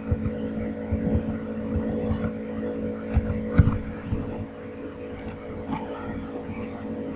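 Computer keyboard keys clicking irregularly as an email address and password are typed, over a steady low electrical hum.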